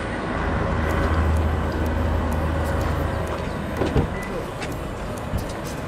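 A vehicle engine hums low and steady for the first few seconds, then just before four seconds in comes the sharp click and thunk of a Toyota Vitz's door handle and latch as the driver's door is pulled open, followed by a few small ticks.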